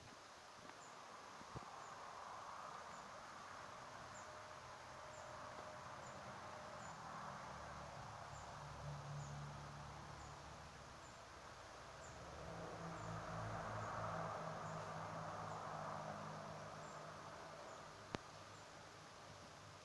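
Faint outdoor ambience: a thin, high chirp repeating about once a second. A low droning hum swells and fades twice, loudest past the middle, and a single sharp click comes near the end.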